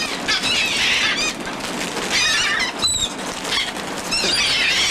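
A flock of seagulls calling over one another with many high, squealing cries while they crowd in begging for food. The calls come in waves about a second in, about two seconds in, and again from about four seconds on.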